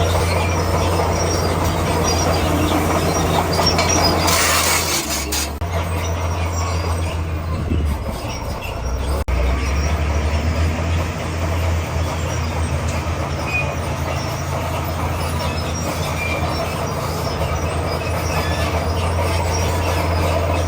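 Komatsu D41P crawler bulldozer working rock: its diesel engine runs steadily under load over the clanking and squealing of its steel tracks, with a brief hissing surge about four seconds in.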